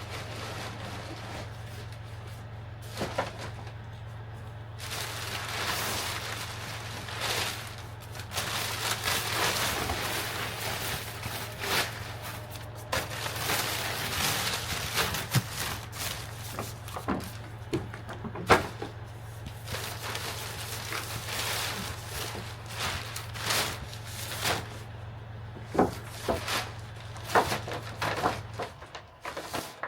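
Work noises from fitting wooden ceiling panels: scattered knocks and clicks of wood and tools, with stretches of rustling or scraping, over a steady low hum that stops near the end.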